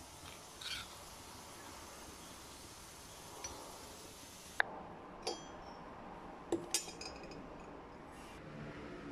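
A metal spoon scraping and clinking lightly against a granite mortar and a stainless steel bowl while ground black pepper is scooped, giving a few sharp faint clinks in the second half.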